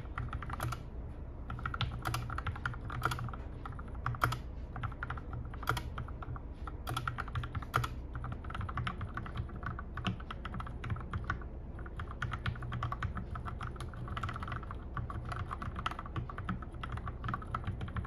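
Mechanical keyboard fitted with yellow switches being typed on steadily: a fast, continuous patter of key clicks.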